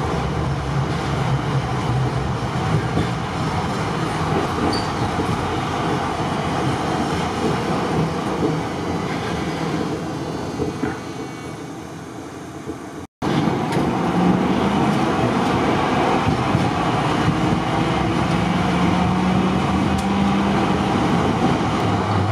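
Ex-Hannover Düwag TW6000 tram running, heard from inside the car: a steady rumble of wheels and motors. It grows quieter toward the middle, cuts out for an instant, then comes back louder with a hum that rises in pitch.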